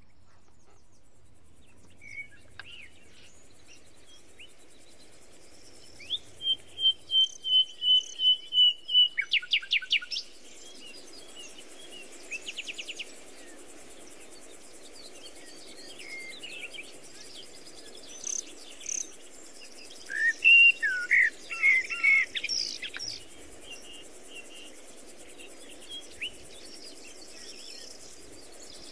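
Wild songbirds singing: a run of about a dozen quick repeated notes, then short rattling trills and varied chirping phrases, over a steady low background hiss.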